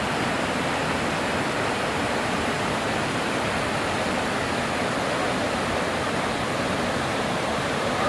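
Steady rush of a waterfall in heavy flow, white water cascading down over boulders.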